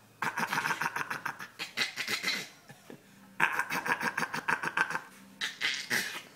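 Dog fake-coughing on command: quick hacking puffs in rapid succession, in two long bouts and a couple of short bursts near the end.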